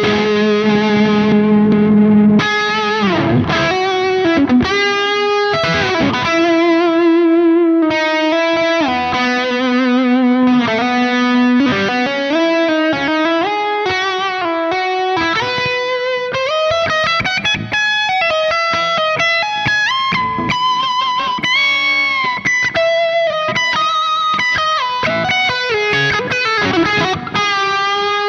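Ibanez Universe UV7P seven-string electric guitar played through an amp with effects: melodic lead lines of held notes with vibrato and slides, moving to quicker runs and bent notes in the second half.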